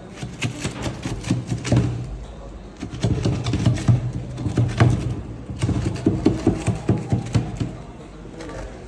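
Crisp baked bread crust crackling and crunching as a knife saws through it around the rim of a Maraş bezdirmesi, in two long runs of quick sharp cracks with a short pause between them.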